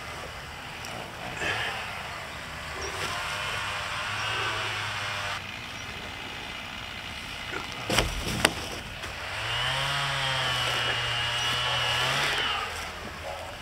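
Chainsaw running, its pitch rising and falling as it is throttled up and eased off, with a longer steady high-revving stretch near the end. Two sharp knocks come about eight seconds in.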